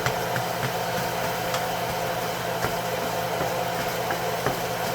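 Scrambled eggs cooking in butter in a skillet: a steady hiss over a low hum, with a few light clicks of a spatula against the pan.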